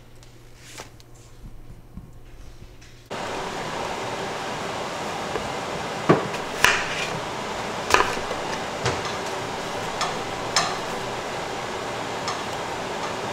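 Sharp knocks and clinks of hard objects being handled, several of them a second or two apart, over a steady hiss that starts suddenly about three seconds in.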